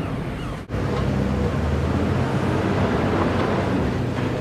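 A heavy machine's engine running steadily under a haze of yard noise, with a short break under a second in.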